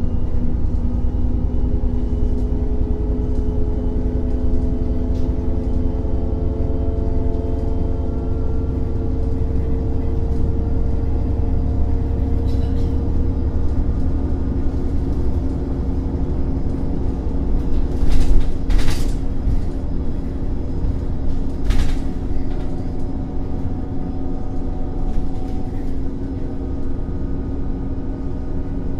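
Irisbus Cityclass city bus with its Iveco Cursor 8 CNG inline-six engine and Voith automatic gearbox, heard from inside the cabin while under way. It is a steady low rumble with a whine that rises slowly in pitch as the bus gathers speed, then holds steady. Three short, loud noises come about two-thirds of the way through.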